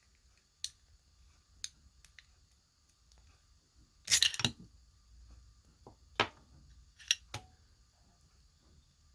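Scattered metal clicks and light scrapes from the recoil spring being taken out of a Star BKS 9mm pistol's slide. The loudest is a brief cluster of clicks about four seconds in.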